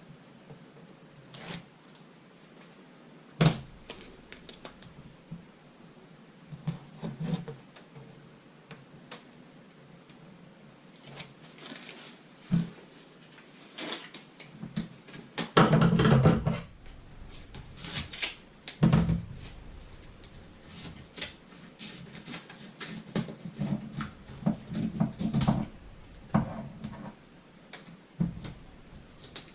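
Strips of double-sided DIY tape being handled and pressed onto a laptop's plastic screen lid: scattered clicks, taps and rustles, with a sharp click about three seconds in and a longer rustle about halfway through.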